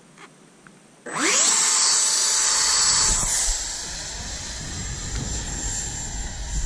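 Electric motor and propeller of a FunJet model jet spooling up about a second in with a rising whine, then running loud and steady with a high-pitched whine over a strong rush of air. It drops in level about three and a half seconds in as the model flies off and climbs away.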